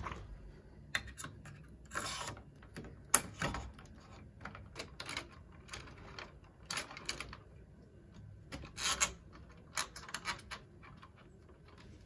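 Nuki universal euro lock cylinder being pushed into the door's lock case and handled with a screwdriver: irregular metal clicks and short scrapes, with a sharp click about three seconds in.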